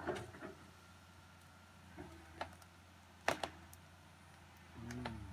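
Cat 315C hydraulic excavator's diesel engine running steadily with a low hum, heard at a distance, with a few sharp clicks, the loudest about three seconds in.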